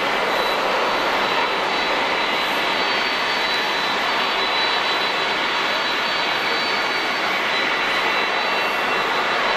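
Boeing 787-8 Dreamliner's GEnx-1B turbofans at takeoff climb power: steady jet engine noise with thin, high whining tones running through it.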